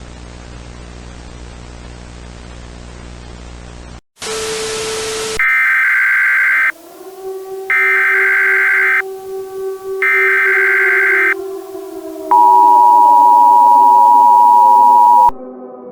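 A steady buzz of static, then a short burst of noise, then three bursts of the Emergency Alert System's screeching digital header tones, followed by the EAS two-tone attention signal held for about three seconds. A low drone slowly falls in pitch underneath.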